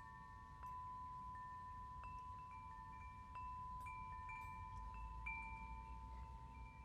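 Soft chime tones: single notes struck every second or so at a few different pitches, each ringing on and overlapping the next.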